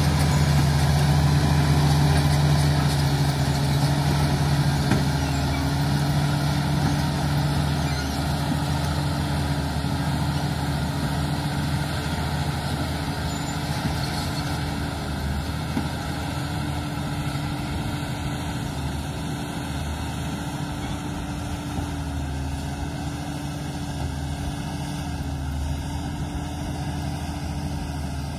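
Komatsu D85 crawler bulldozer's diesel engine running steadily under load as the dozer pushes soil with its blade, growing gradually fainter as the machine moves off.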